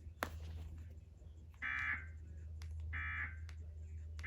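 Emergency Alert System end-of-message data bursts: short, buzzy digital chirps, two in full and a third starting at the end, about 1.3 s apart, marking the end of the alert. A single sharp click comes just after the start, over a steady low hum.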